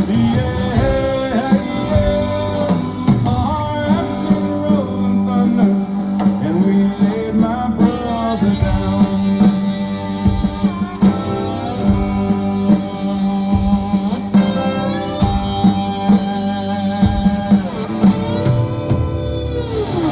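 Live country-rock band playing after the last sung line, with a lead guitar playing bending notes over the band.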